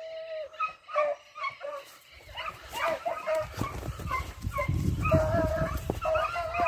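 Beagle-type scent hound giving tongue on a rabbit hunt: repeated yelping cries, some short and some drawn out into a held bay. A low rumble sits under the cries from about two seconds in until near the end.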